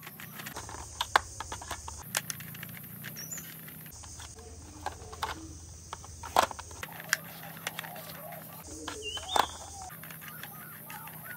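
A small screwdriver turning screws into a plastic toy ambulance's body, heard as scattered sharp clicks and ticks of metal on plastic. A few faint bird chirps sound in the background.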